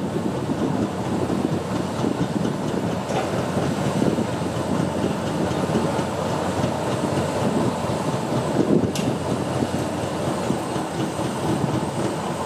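High-reach demolition excavator working on a steel structure: a steady rumble of engine and hydraulics, with metallic clatter and squeal. Two sharp metal clanks stand out, about three seconds in and again near nine seconds.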